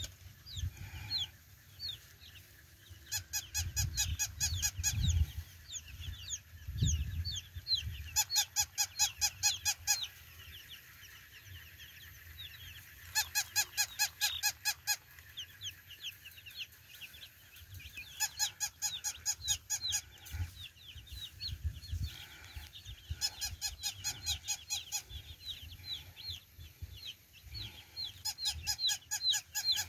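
Many young chicks peeping, each peep short and sliding downward. A rapid, evenly pulsed call comes in bursts of about two seconds, repeating roughly every five seconds.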